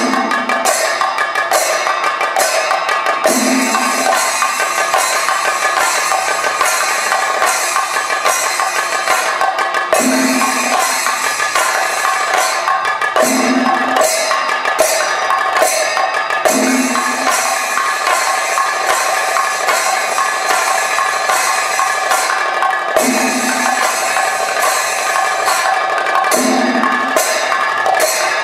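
Thayambaka ensemble of chenda drums beaten rapidly with sticks, over a steady wash of ilathalam hand cymbals. A deeper drum stroke comes round about every three seconds, marking the rhythmic cycle.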